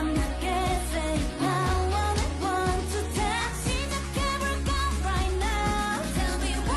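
Pop song: a singing voice over a bass line and a steady beat.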